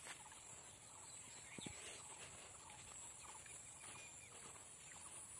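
Near silence: faint outdoor background with a few faint, short distant animal calls and a single soft click about one and a half seconds in.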